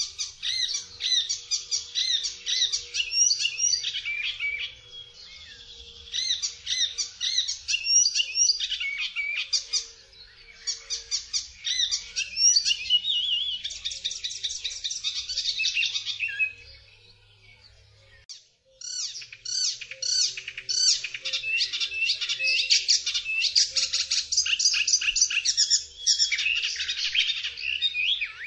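Icterine warbler singing: long runs of fast, varied, chattering notes, broken by a few short pauses and a longer one about two-thirds of the way through.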